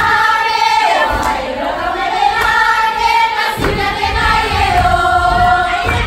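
A group of girls singing a Kiribati song together in long, slowly gliding held notes. Low thuds join beneath the singing from about halfway.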